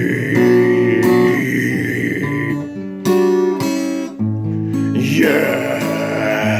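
Acoustic guitar strummed, chords struck several times and left to ring. A man's voice holds a sung note over the first two seconds and comes back in about five seconds in.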